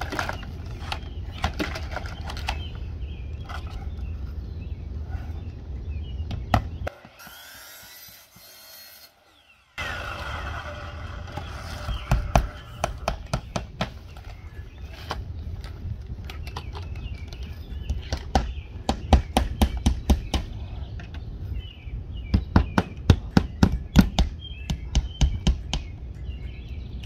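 Hammer driving nails through the nailing flange of vinyl siding, in several quick runs of sharp strikes, the longest near the end, with clicks and rattles of the vinyl panels being handled in between.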